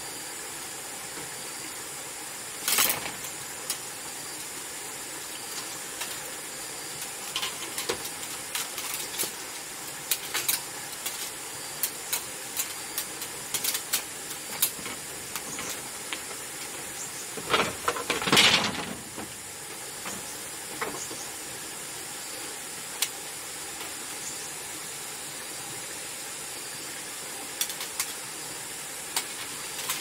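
Bamboo slats being lashed to a bamboo frame: scattered clicks, knocks and short rasps of bamboo and binding line being pulled tight. The loudest is a brief scraping rasp about two thirds of the way through. A steady high hiss runs underneath.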